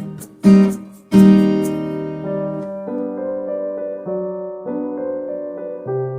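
Instrumental background music: three strummed chords in the first second and a half, then a slow, gentle piano melody.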